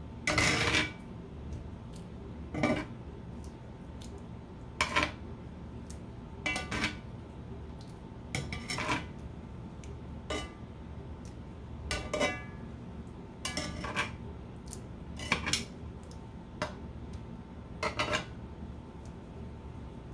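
Metal tongs clinking and scraping against a cast-iron skillet and a pot as chicken pieces are picked up and moved, a sharp clink every second or two.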